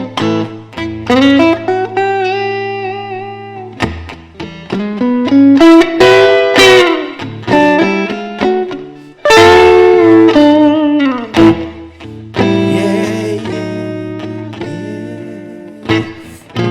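Blues lead on an electric guitar: picked notes with string bends and vibrato, each phrase ringing out and fading before the next.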